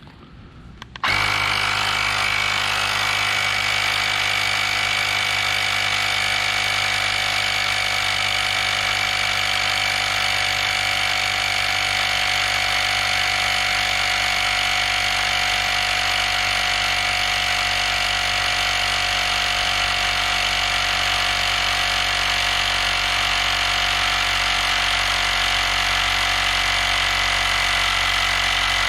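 Battery-powered EAFC cordless tyre inflator's compressor switching on about a second in and running steadily, a steady hum with a high whine, as it pumps up a nearly flat tyre.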